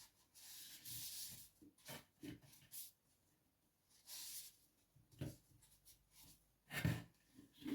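Intermittent rubbing and wiping on the plastic parts of a vacuum cleaner being cleaned by hand: a few short scrubbing strokes, with light knocks as the parts are handled.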